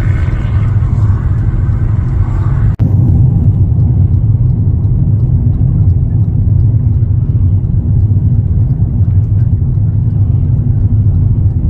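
Steady low rumble of road and engine noise inside a car's cabin at highway speed. The sound breaks off for an instant about three seconds in, and is duller afterwards.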